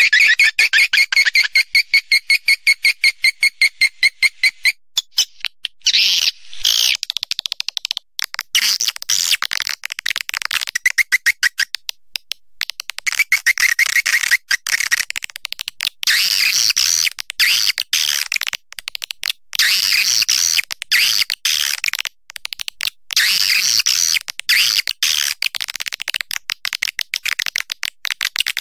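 Swiftlet calls: a fast, even train of high buzzy chirps for about the first five seconds, then looser bursts of high twittering chirps with short breaks between them.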